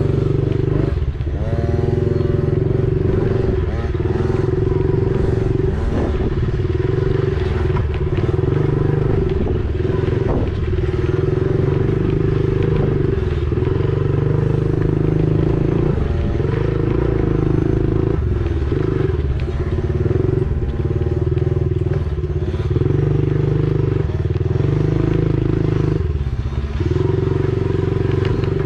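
Honda 70 motorcycle's small single-cylinder four-stroke engine running under way, its revs rising and falling every second or two as the throttle is worked.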